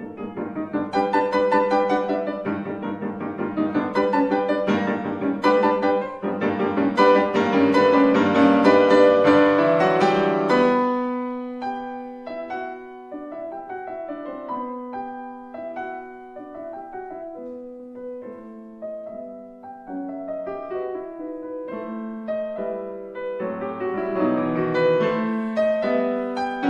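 Concert grand piano played solo: a dense, loud passage of chords and runs for the first ten seconds or so, then a sudden drop to a quieter passage of separate held notes, which grows fuller again near the end.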